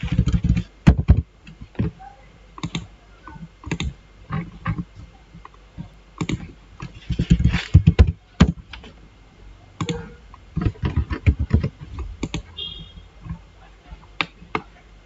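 Typing on a computer keyboard and clicking a mouse: irregular clusters of short keystroke clicks with pauses between them.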